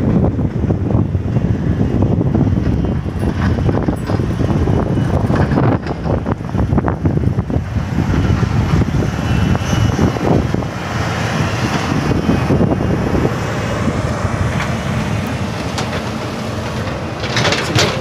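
Vehicle travelling over a rough road: a loud, dense rumble with frequent knocks and rattles.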